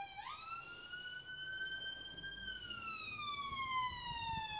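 Emergency vehicle siren wailing. It swoops up sharply just after the start, climbs slowly for about two seconds, then slides steadily down in pitch through the rest.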